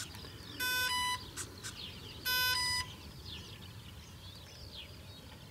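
Electronic speed controller arming beeps sounding through an electric RC plane's motors as the flight battery is connected: two short electronic beeps about a second and a half apart, each stepping from a lower note up to a higher one.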